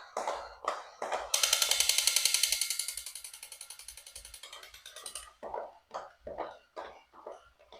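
Clicks from plastic toys being handled. Then a rapid ratcheting rattle of about ten clicks a second starts loud and fades out over about four seconds, followed by more scattered knocks.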